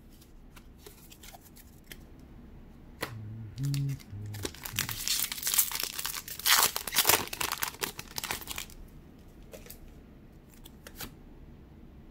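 A Pokémon booster pack's foil wrapper being torn open and crinkled by hand. The crackling is loudest from about five to nine seconds in, with a few light taps before it.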